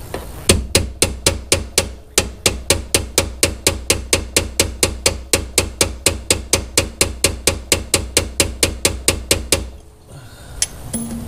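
Hammer blows on a straight punch driving at the 7mm dowel pin in a ZF six-speed's shifter linkage: a steady run of sharp metal strikes, about four a second, for some nine seconds before stopping near the end. The pin is seized and not moving.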